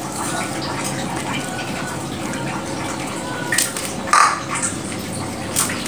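Large pot of beef rawon boiling, a steady bubbling. From about three and a half seconds in, a few short sharp sounds break through, the loudest a brief call-like cry around four seconds in.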